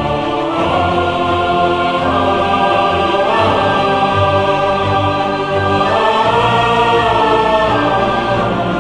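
Background music of sustained chords that change every couple of seconds.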